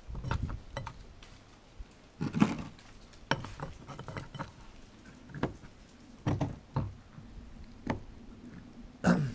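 Irregular clinks and knocks of a cut metal ring being handled and pushed into the metal tube of a homemade engine mount on a wooden board, roughly one knock a second.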